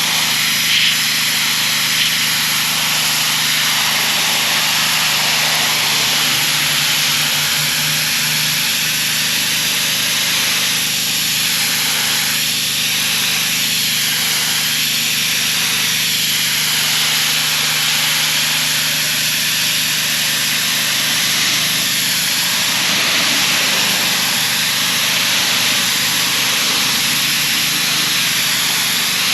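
Gas-engine pressure washer running steadily under load, its high-pressure water jet hissing as it sprays a wall.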